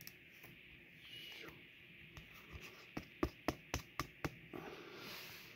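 Pokémon trading cards being handled and flicked through one by one: a quick run of about six sharp card snaps past the middle, over a faint steady hiss.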